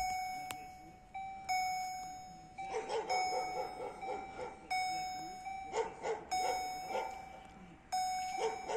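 Level crossing's EHL electronic warning bell dinging over and over, each ding a bell-like tone that dies away, a little over one a second, while the barriers are down. A dog barks in quick runs between the dings.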